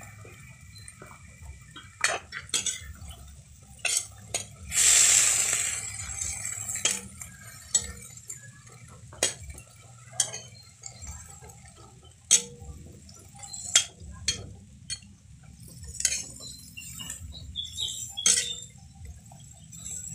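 Metal spatula scraping and knocking against a metal wok as shredded cabbage and carrots are stir-fried, in irregular clinks and clanks, with one longer rush of noise about five seconds in.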